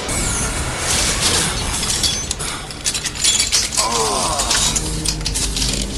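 Sound-effects track of clicking, clattering and rattling, with a short falling sweep of tones about four seconds in.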